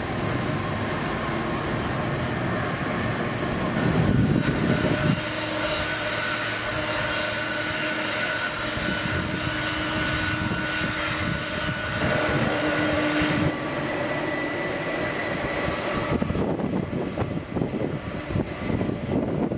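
Air Canada Rouge Boeing 767's jet engines running at taxi power: a steady roar with several high whine tones that shift in pitch a few times.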